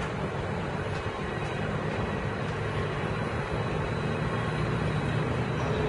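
A train moving past the station platform: a steady rumble that grows slowly louder.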